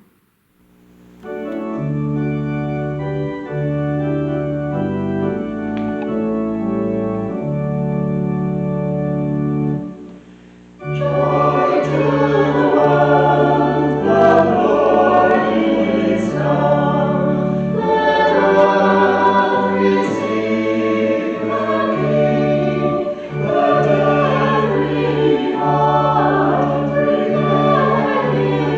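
Church organ playing a hymn introduction in sustained chords, then a choir joins in singing the hymn with the organ about ten seconds in.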